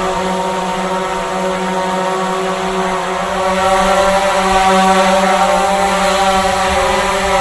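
Multirotor drone in flight: a steady whine of its propellers with a wavering pitch, swelling a little louder about halfway through.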